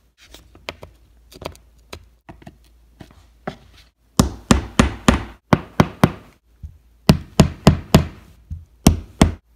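Hammer tapping small plastic pegs into holes in a particleboard furniture panel. First come a few light taps, then from about four seconds in, louder sharp knocks in quick runs.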